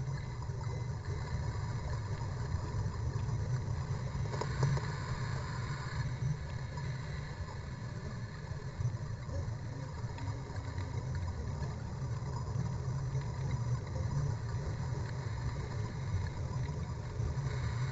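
Steady, muffled low rumble of underwater ambience picked up through a GoPro Hero 2's sealed dive housing, with a brief faint crackle about four and a half seconds in.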